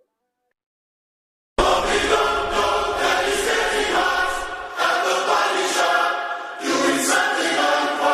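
Silence for about a second and a half, then background music with singing voices cuts in suddenly and carries on.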